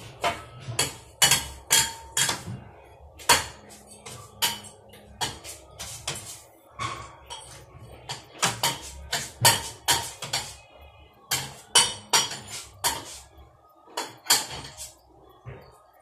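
Irregular knocks and clinks, a few a second, from a ceiling fan's glass light shades and fixture being wiped and dried with a cloth, some of them with a short ring.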